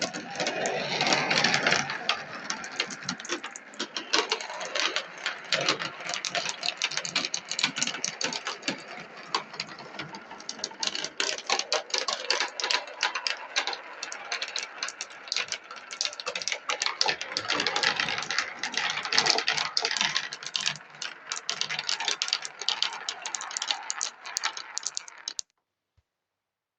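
16 mm glass marbles rolling and clattering down a marble run track, many fast clicks and rattles as they knock against the track and each other. It cuts off suddenly near the end.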